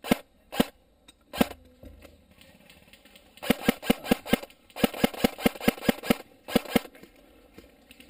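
Airsoft electric rifle (an Ares Amoeba AM-007) firing single shots, each a sharp clack: three spaced-out shots at first, then, from about three and a half seconds in, rapid strings of about five shots a second.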